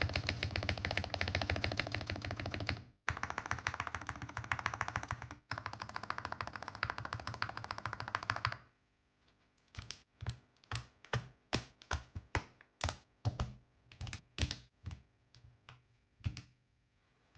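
Mini Cat64 mechanical keyboard with linear switches being typed on: fast, continuous typing for about eight and a half seconds, then single key presses at about two a second.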